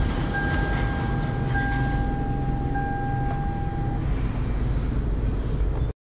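Car dashboard warning chime: a steady electronic tone that swells about once a second, over a low steady rumble. The tone stops about four seconds in, and all sound cuts off near the end.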